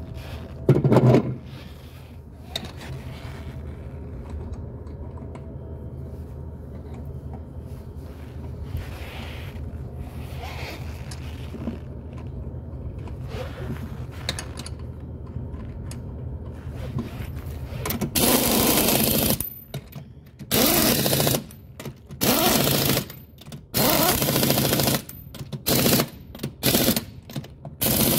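Impact wrench tightening the lug nuts on a golf cart's front wheel, in a series of bursts about a second long, the later ones shorter, starting about two-thirds of the way in. Before that, a steady low hum and a single knock about a second in as the wheel is fitted onto the hub.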